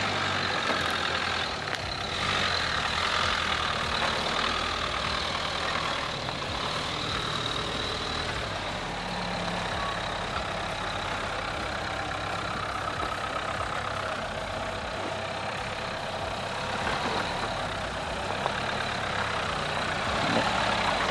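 Dacia Duster SUV engines running steadily at low speed as the cars crawl off-road.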